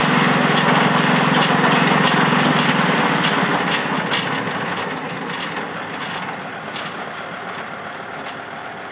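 Kubota tractor's diesel engine running steadily. Its deep hum drops away about three seconds in and the engine grows steadily fainter, with sharp clicks throughout.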